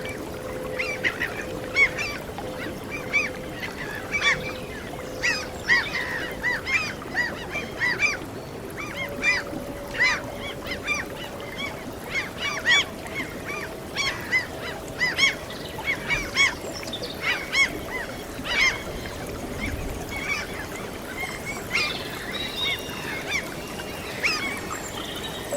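A flock of gulls calling over and over in short, quick cries, over a continuous wash of noise. Beneath the calls runs a soft, steady held note that steps up in pitch about nine seconds in and again a few seconds later.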